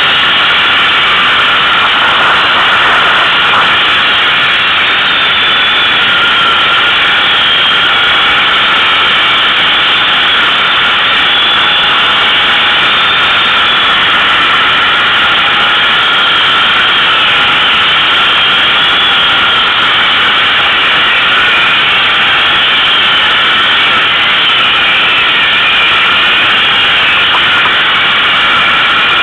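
ATV engine running steadily under way on a woodland trail, heard close from on board the quad, its pitch wavering a little with the throttle.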